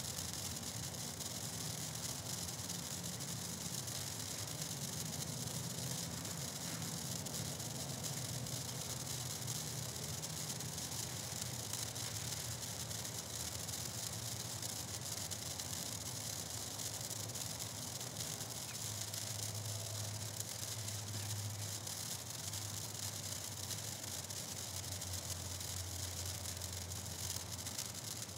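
Handheld Black Cat Neon sparklers burning with a steady fizzing hiss, over a low steady hum.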